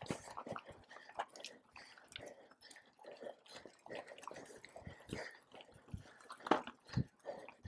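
Mountain bike rolling over rough dirt and gravel, making an irregular run of crunches, clicks and knocks from the tyres and the rattling bike.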